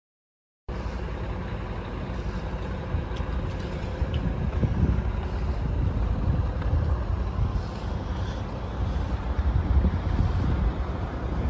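Steady low rumble of an idling diesel truck engine, cutting in suddenly under a second in after silence.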